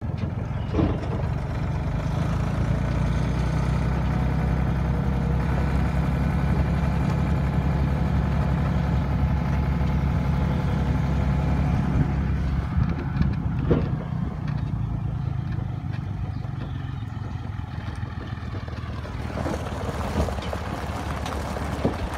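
Ford 4630 tractor's three-cylinder diesel running steadily while towing hay wagons, with a few sharp knocks from the wagons. The engine grows quieter a little past the middle, and a rougher, noisier crunch of tyres on gravel comes in near the end.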